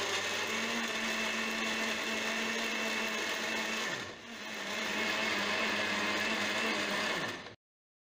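Electric mixer-grinder (blender) running, blending banana, cashew and milk for a milkshake. The motor dips and picks up again about halfway through, then cuts off near the end.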